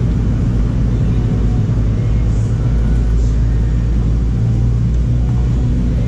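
A steady low rumble that holds at an even level throughout, with a couple of faint high chirps about two and a half and three seconds in.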